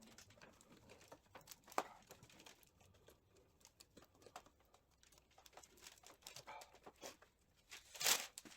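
Faint scattered clicks and small metal scrapes as a homemade puller tool is threaded onto a TR6 gearbox's speedometer drive, with one sharper click about two seconds in and a louder scrape near the end.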